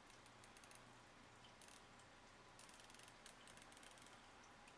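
Faint runs of rapid small clicks in several short bursts: the turret of a 3-9x40 AO Gamo rifle scope being turned click by click while zeroing it on a laser bore-sight dot.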